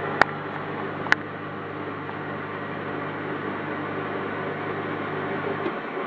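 Bosch dishwasher running on a quick rinse: a pump hums steadily under a broad rush, and the hum cuts off shortly before the end while the rush continues. Two sharp clicks in the first second or so.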